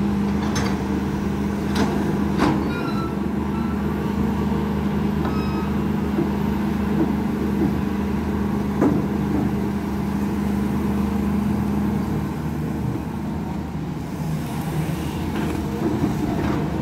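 Diesel engine and hydraulics of a Volvo long-reach excavator running steadily under load as it swings its boom, with a steady hum that eases off about two-thirds of the way through. A few sharp knocks in the first few seconds and once near the middle.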